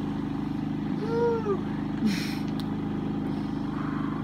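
An engine runs steadily throughout as a low, even hum. About a second in there is a short, high, rising-then-falling whine, and about two seconds in a brief breathy hiss.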